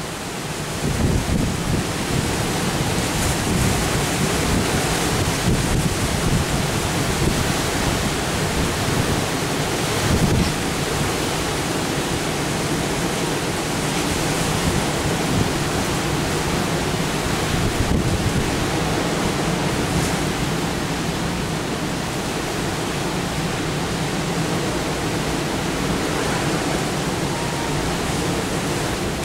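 Steady hurricane wind blowing hard across the microphone with a deep rumbling buffet, over the wash of heavy storm surf breaking along the beach.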